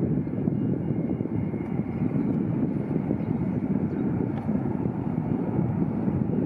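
Boeing 737-8 MAX's CFM LEAP-1B turbofan engines running with a steady rumble and a faint high whine above it.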